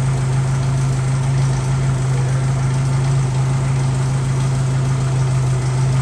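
Jeep Wrangler YJ engine idling steadily with a deep, even hum, run for about a minute after an oil change to circulate the fresh oil.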